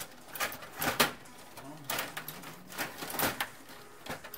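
Table hockey game in play: irregular sharp clacks and rattles of the metal control rods and plastic players knocking against the puck and the board, the loudest knock about a second in.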